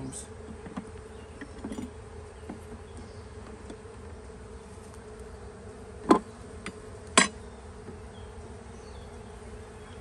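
Honeybee colony buzzing in an open hive, a steady hum. Two sharp knocks about a second apart, a little past halfway, come from the wooden hive frames being handled with the hive tool.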